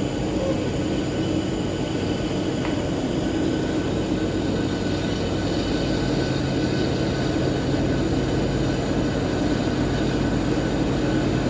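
CSX train passing: a steady diesel-locomotive drone over the rumble of the train on the rails, with a lower engine tone joining about halfway through.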